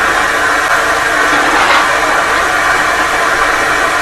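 Steady hiss of steam escaping from the Midland Railway 4F 0-6-0 steam locomotive No. 43924.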